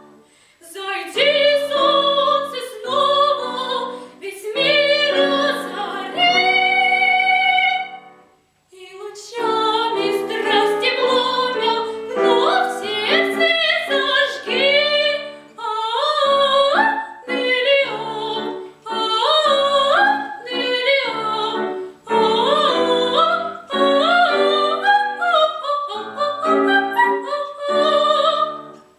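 A girl singing a classical art song with piano accompaniment, with vibrato on the held notes. The music breaks off briefly about eight seconds in, then goes on in quicker notes and ends just before the close.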